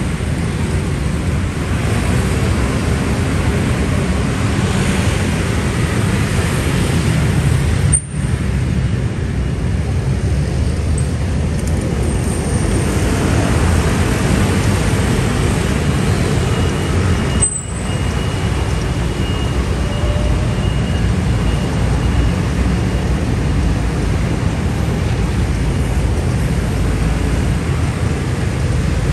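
Dense road traffic, a stream of motor scooters and motorcycles, running steadily with a constant engine and tyre rumble. The sound drops out for an instant twice, about eight and seventeen seconds in.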